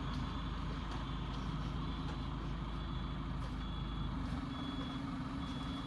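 A vehicle's engine running with a low steady rumble while a short high beep repeats about once a second, in the manner of a reversing alarm.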